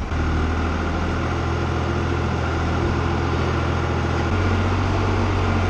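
A New Holland tractor's diesel engine running steadily at a constant speed, its tone shifting slightly about four seconds in.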